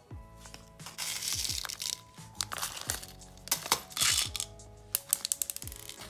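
A small clear plastic bag crinkling and small plastic beads clicking in short bursts as a slime supply pack is filled by hand, over background music.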